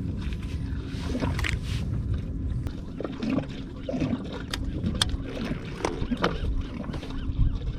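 Wind buffeting the microphone and water lapping against a kayak's plastic hull, with a few sharp clicks and knocks scattered through.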